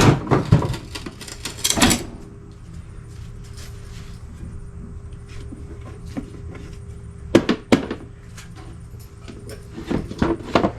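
Knocking and clattering of lawnmower parts and accessories being handled, loudest in a cluster over the first two seconds, then two sharp knocks about two-thirds of the way through and more near the end.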